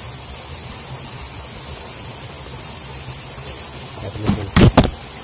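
A steady rushing background, then a quick cluster of three or four loud knocks about four seconds in: hands and fishing tackle handled right up against the microphone as the line is readied for another cast.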